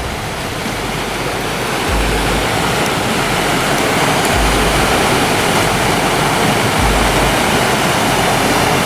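Red Rock Falls rushing: a loud, steady wash of falling water that cuts off suddenly at the very end.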